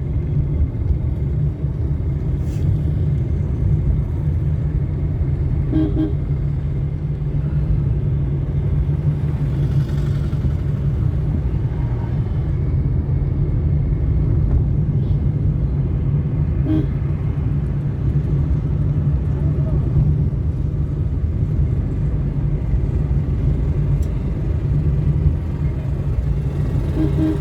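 Road traffic: a steady low rumble, with three short vehicle horn toots several seconds apart.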